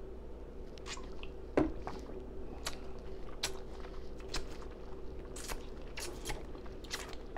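Close-miked wet mouth sounds: a gulp of bottled water about a second and a half in, then scattered lip smacks and tongue clicks.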